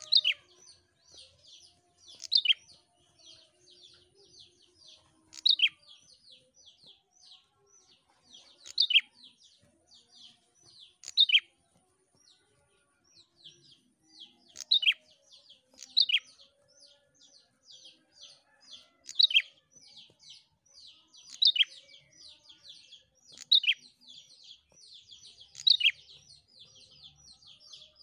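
Caged tailorbird (prenjak) singing: a fast, unbroken string of short high chips, several a second, broken every two to three seconds by a louder call that sweeps down in pitch.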